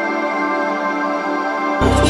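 Ambient background music of steady held chords; near the end a deeper, louder part comes in.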